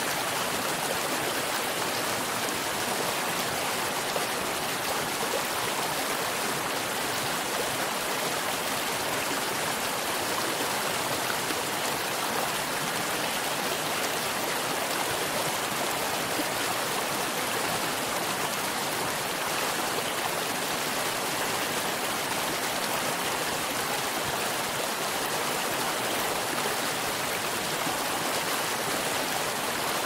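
Shallow rocky stream rushing over stones and small cascades, a steady, unbroken rush of water.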